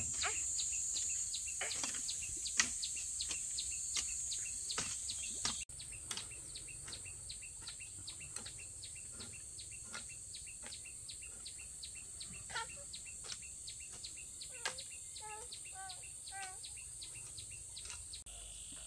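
A hoe chopping and scraping into loose soil in repeated strokes, over a steady high-pitched insect drone; a few bird chirps near the end.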